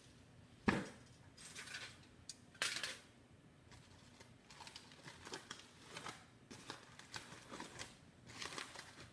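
A sharp knock about a second in, then a string of short crinkling and scraping sounds: a foil-covered baking pan being handled and taken out of a toaster oven.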